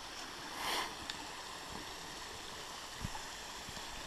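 Water trickling over small rock cascades into a creek pool, a steady soft rush, with a brief swish of noise a little under a second in.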